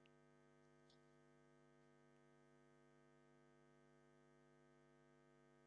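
Near silence: a faint steady electrical hum, with a faint click about a second in.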